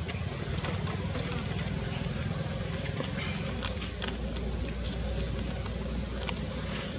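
Outdoor background noise: a steady low rumble, with a few faint clicks scattered through it.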